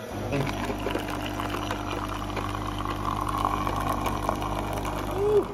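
Azkoyen Vitro S1 coffee vending machine running steadily as it dispenses a stream of coffee into a paper cup: a pump hum with liquid pouring.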